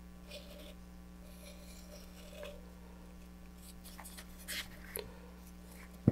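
A wooden craft stick scraping and smearing epoxy around the inside edge of a fiberglass coupler tube, in faint soft strokes, with a few light clicks around four and five seconds in and a sharp knock right at the end.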